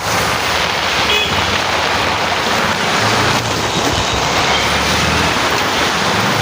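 Steady rushing noise of heavy rain and water, with a vehicle engine humming low underneath for a couple of seconds midway.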